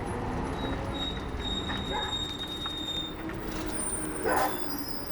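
City bus riding along: a steady low rumble of engine and road noise with faint high whines, and a short louder noise about four seconds in.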